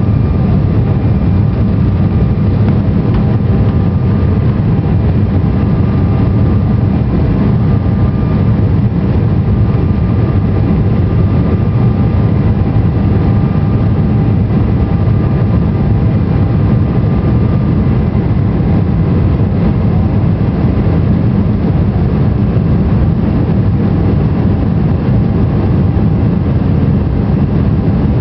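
Jet airliner cabin noise from a window seat over the wing during climb-out after takeoff: a loud, steady low rumble of the engines and rushing air. A faint high whine runs through it and fades out about two-thirds of the way in.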